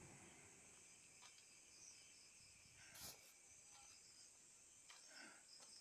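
Near silence: a faint steady high hiss, with a single soft click about three seconds in.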